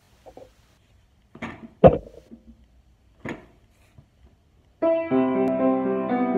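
A few short knocks, the loudest about two seconds in, then about five seconds in a Vose & Sons grand piano begins playing: a full chord rings on, and a second chord follows about a second later.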